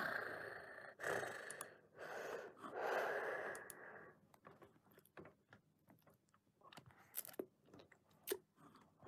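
A man's heavy, breathy gasps: four in a row over about four seconds, then quiet with a few faint clicks.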